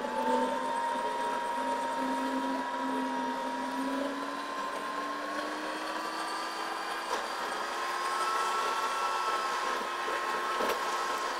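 A vehicle's engine running with a steady whine that slowly rises in pitch.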